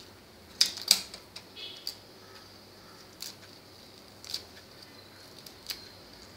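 Kitchen scissors snipping holy basil (tulsi) leaves: several short, sharp snips at uneven intervals.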